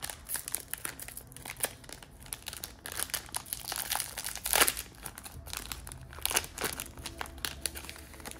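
Foil wrapper of a trading card pack crinkling and crackling as it is torn and peeled open by hand, with one louder rip about halfway through.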